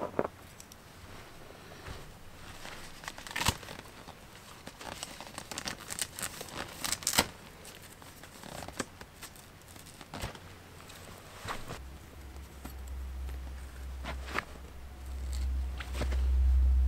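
Rustling and crinkling of nylon tent fabric and cord being handled as an MSR Hubba Hubba NX 2 tent's fly and guy lines are pitched, with scattered sharp clicks and scrapes. A low rumble builds over the last few seconds.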